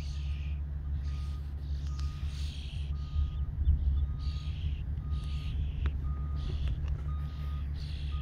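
Wind buffeting the microphone in a steady low rumble, with a high chirp repeating about every two-thirds of a second in the background.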